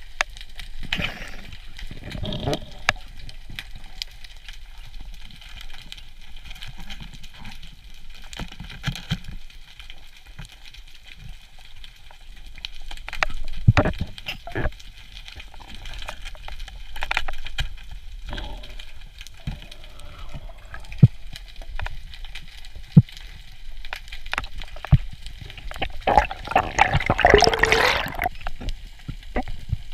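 Underwater sound through a camera's waterproof housing: muffled water movement with scattered clicks and knocks. Near the end, a dense burst of air bubbles is the loudest sound.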